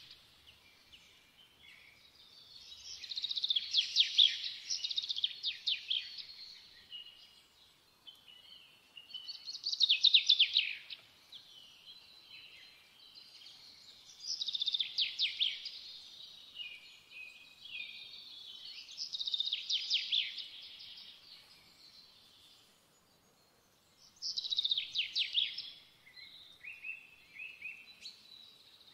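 A songbird singing: phrases of rapid, high trilled notes repeat about every five seconds, with softer twittering between them.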